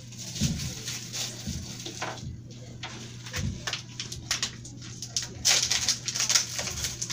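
Paper and plastic medical packaging crinkling and rustling as supplies are unwrapped by hand, growing louder and busier near the end, with a few soft low thuds over a steady low hum.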